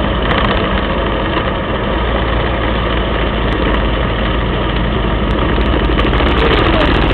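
Moto Guzzi sidecar outfit's engine running steadily on the move, heard from the sidecar under heavy wind and road noise.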